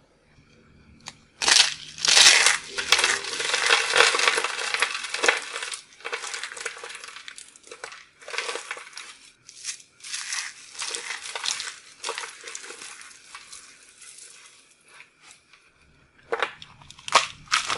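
Hands crushing and crumbling dried, starch-coated soap roses and hearts: crisp crunching and crackling in dense bursts with short pauses between, and a few sharp separate snaps near the end.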